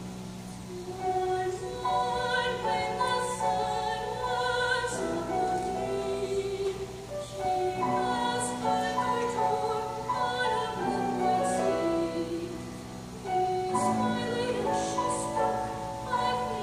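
Female solo voice singing long held notes with vibrato, in phrases with short breaths between, accompanied by a grand piano.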